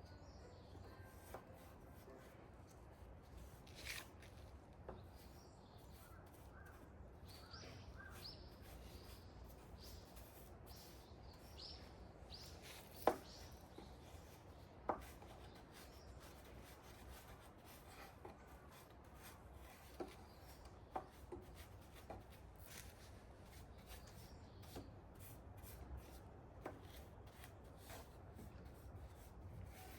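Faint rubbing and scraping on wooden boards, broken by scattered light knocks and taps, two of them sharper about 13 and 15 seconds in.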